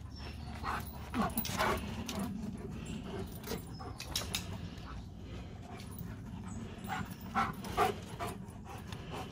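Russian Black Terrier puppy giving short yelps while it plays: three quick ones about a second in and three more about seven seconds in.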